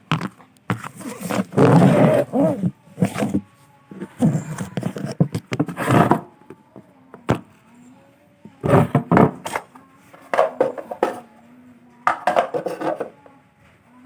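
Plastic housing parts of a Polytron washing machine being pried and handled during disassembly: irregular scraping and knocking in loud bursts with short pauses between.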